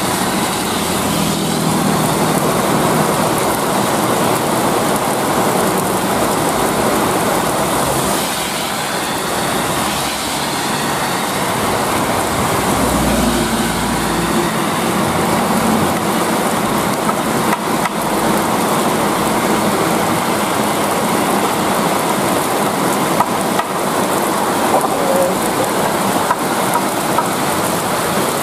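Heavy trucks and a coach passing close on a rain-soaked road in heavy rain, engines running and tyres hissing through the water. A deep engine rumble swells as the coach goes by about halfway through.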